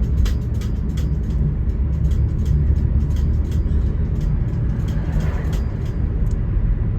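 A car driving at road speed: a steady low rumble of engine and tyre noise, with scattered light clicks and rattles.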